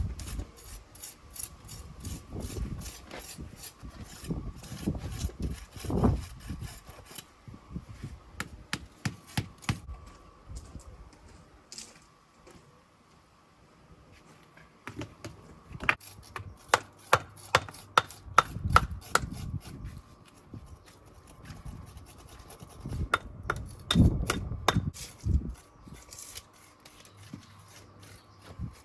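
Masonry hand tools scraping and tapping on stone and lime mortar: irregular scraping and rubbing, with runs of sharp taps at about three or four a second in the middle and again later.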